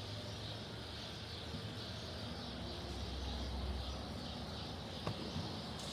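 Outdoor ambience: a steady high hiss throughout, with a low rumble swelling in the middle and a single sharp click near the end.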